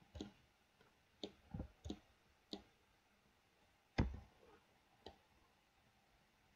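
Scattered clicks of a computer mouse and keyboard keys, about seven in all at irregular spacing, the loudest a heavier click about four seconds in.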